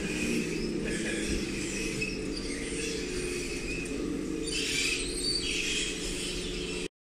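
Radio-controlled model Caterpillar bulldozer working: a steady mechanical hum from its drive, with scattered high-pitched squeaks and scraping as its tracks and blade work through sand.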